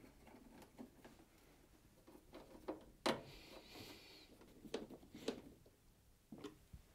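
Faint clicks and scrapes of a Phillips screwdriver driving screws into a washing machine's metal control-panel frame, with the sharpest click about three seconds in and a short scratchy rasp just after it. A few light knocks of hands on the plastic panel follow near the end.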